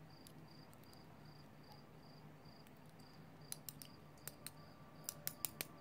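A cricket chirping faintly in an even, steady rhythm of short high chirps. A few small sharp clicks come about three and a half seconds in and again near the end, from metal lock pins and tweezers being handled.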